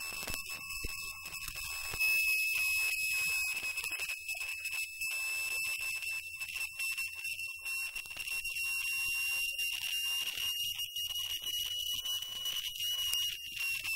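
A steady high-pitched tone with overtones that holds nearly one pitch and creeps slightly higher, over a faint rumble.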